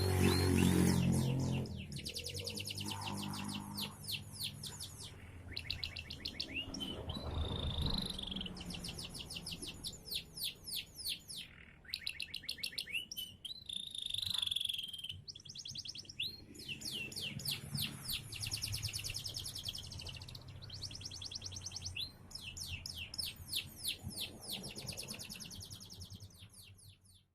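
Domestic canary singing: long phrases of fast trills, each a rapid string of identical high notes, broken by short pauses and a few clear whistled notes about eight and fourteen seconds in.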